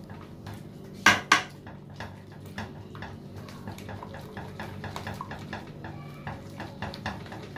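A small whisk stirring thick custard in a metal pot, clicking and scraping against the pot's sides and bottom, with two louder knocks about a second in. The stirring works sugar into the freshly thickened custard.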